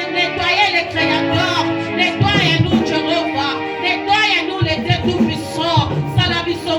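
Music with singing: wavering sung voices over sustained instrumental chords.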